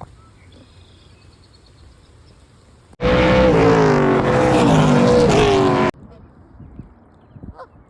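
Race car engine running loud for about three seconds, its pitch wavering slightly, then cutting off suddenly.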